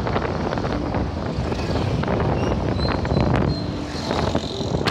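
Wind buffeting the phone's microphone on a moving motorcycle, mixed with steady road and engine noise.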